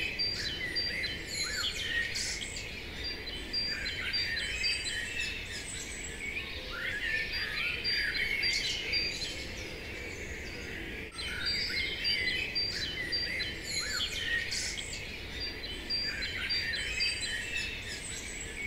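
Ambient birdsong: several small birds chirping and calling over a light steady hiss, with a short break about eleven seconds in where the same stretch of birdsong seems to start over.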